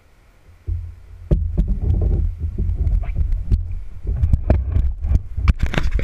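Action camera being grabbed and turned on its mount: a loud low rumble with knocks and clicks against the housing, starting about a second in, with a quick run of sharp clicks near the end.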